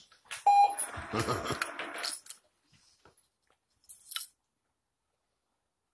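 Remote-controlled treat dispenser gives a short beep, then about a second and a half of mechanical noise as it dispenses treats to the dog. A brief click follows a couple of seconds later.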